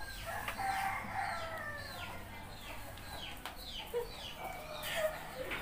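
Chickens calling: a long, drawn-out falling call starting about half a second in, then many short falling calls.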